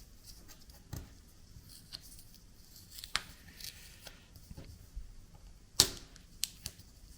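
Washi tape handled against a 3D-printed plastic cutter: scattered sharp clicks and taps, with a short high rasp of tape peeling and tearing about three seconds in and the loudest snap near six seconds.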